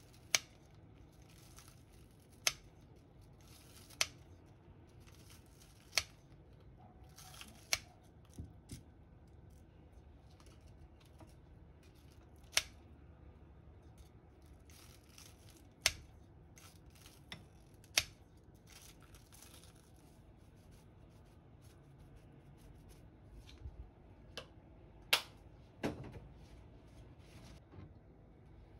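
Kitchen scissors cutting a fried breaded pork cutlet into strips, with a sharp click every couple of seconds and faint crunching of the crust between them.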